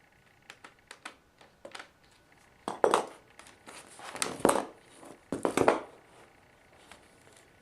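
Small plastic-and-metal clicks, then three louder rattling, scraping bursts about a second apart, as a Phillips screwdriver works the small corner screws out of a laptop's screen bezel.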